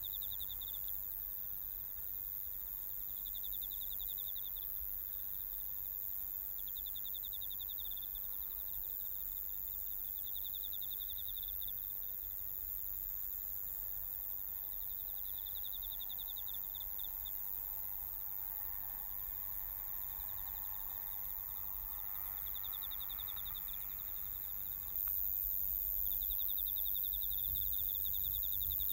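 A cricket chirping in rapid trills about a second long, repeated every few seconds, over a faint steady hiss of outdoor air.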